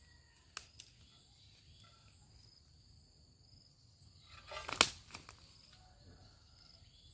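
A long bamboo harvesting pole working in the branches of a petai tree: a couple of faint clicks under a second in, then leaves rustling and one sharp snap about five seconds in as a bunch of petai pods is broken loose.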